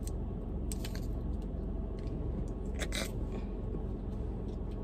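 A few sharp plastic clicks and rustles from handling a car vent-clip air freshener and pulling out its tab, the loudest about three seconds in. Under them runs a steady low hum from the car's idling engine, heard inside the cabin.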